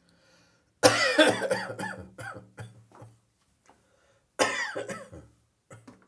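A person coughing with morning catarrh. A fit of several coughs starts about a second in and tails off over two seconds, then a second, shorter fit comes near the end.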